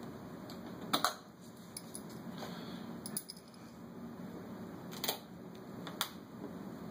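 A switch plate being pried off the wall with a miniature screwdriver: a few sharp clicks and taps of the plate and screwdriver, spread out by a second or two.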